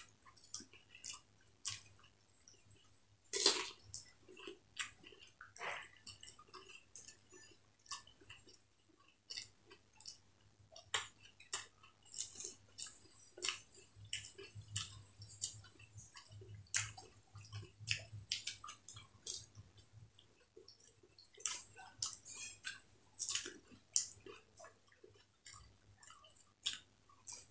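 Two people eating fuchka (pani puri): a steady run of irregular crisp crunches as the hollow puris break, with wet chewing and the clink and splash of puris dipped into bowls of spiced water.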